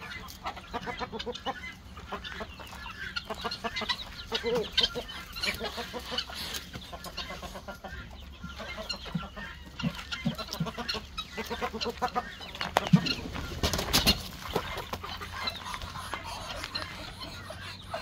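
Mixed poultry flock of chickens and guinea fowl clucking and calling all the time, hungry at feeding time. One loud knock sounds about three-quarters of the way through.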